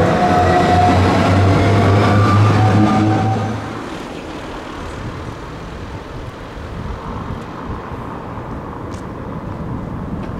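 Electric tram passing close by, its drive whining over a deep hum. After about four seconds this gives way to quieter street traffic noise.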